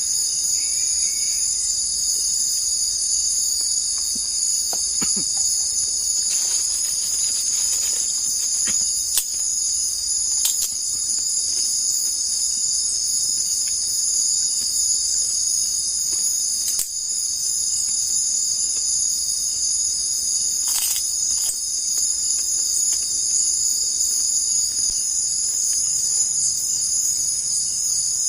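Steady high-pitched chorus of insects, unbroken throughout, with a few faint clicks scattered through it.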